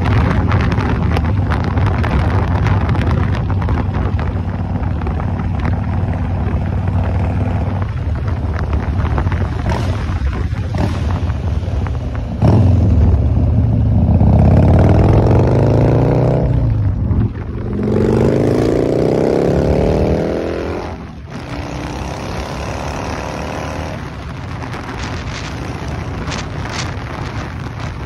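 Harley-Davidson V-twin cruiser motorcycle running under the rider, with wind rushing over the microphone. About twelve seconds in the engine gets louder and its pitch climbs as it accelerates, drops briefly at a gear change, climbs again in the next gear, then eases back to a quieter, steady cruise.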